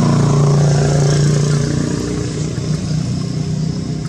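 Motor vehicle engine running with a steady low hum, easing off a little after about two seconds.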